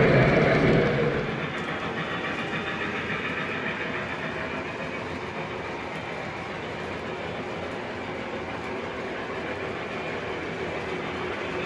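Model train running on the layout track, a steady rattle and rumble of wheels on rail. It is louder for about the first second, then settles to an even running sound.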